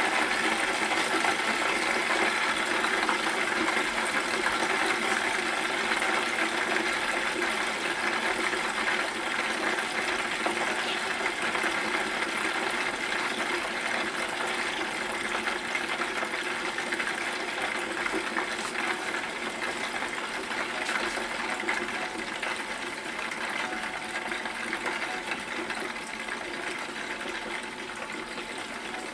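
A pork chop frying in hot oil in a lidded Presto electric fryer: a steady sizzle that slowly gets quieter.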